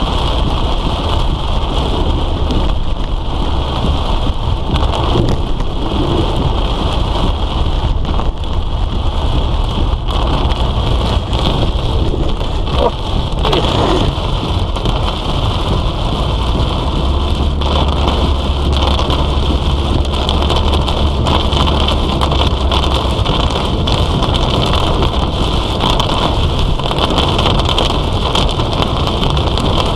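Heavy rain beating on a moving vehicle, with a steady low engine and road rumble underneath.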